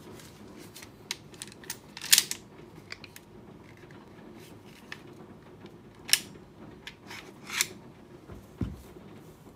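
Sharp metallic clicks and short scrapes of a WE P38 gas blowback airsoft pistol's steel and metal parts being worked by hand as the magazine is drawn out of the grip, the loudest click about two seconds in. A soft low thump near the end as something is set down on the mat.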